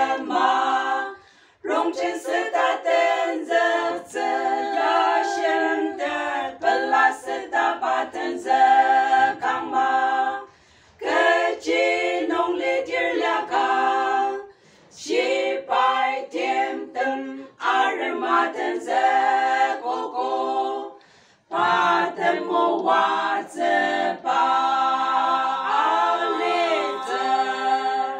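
A group of five women singing a song together without accompaniment, in long phrases broken by a few short pauses for breath.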